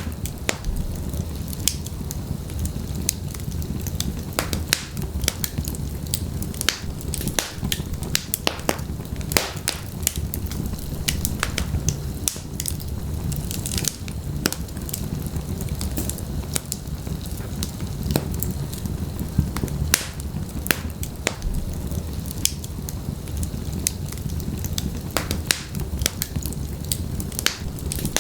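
Wood fire burning in a fireplace, with a steady low rumble of flames and frequent sharp crackles and pops at irregular intervals.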